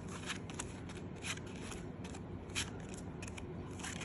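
Silver Pokémon trading cards being handled, slid against each other and laid down: light, irregular clicks and scrapes.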